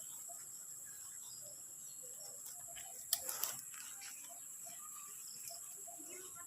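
Steady high-pitched drone of insects such as crickets, with faint scattered bird chirps. A few short sharp sounds come about three seconds in.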